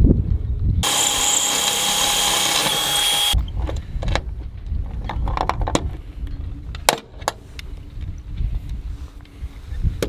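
Power drill running at a steady high whine for about two and a half seconds, starting and stopping abruptly, followed by handling knocks and a few sharp clicks.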